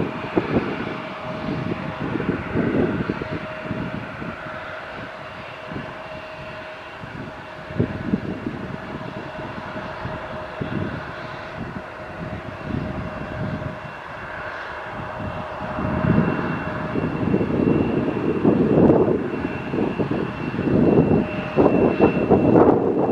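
Airliner engines running with a steady whine, growing louder in the second half, under gusty low rumbling from wind on the microphone.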